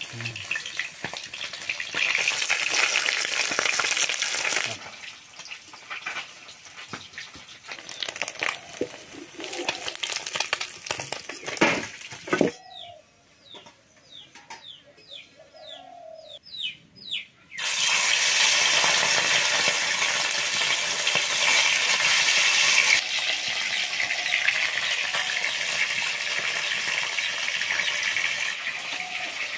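Small fish sizzling in hot oil in an iron wok over a wood fire, with a metal spatula scraping and clicking as the fish are turned. The sizzle is loud at first, drops to a quieter stretch with a sharp knock about twelve seconds in, leaving a few seconds of birds chirping, then comes back loud and steady from about eighteen seconds in.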